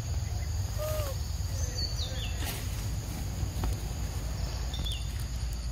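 Outdoor woodland ambience: a steady high insect drone with a few short bird chirps, and a faint brief falling call about a second in, over a steady low rumble.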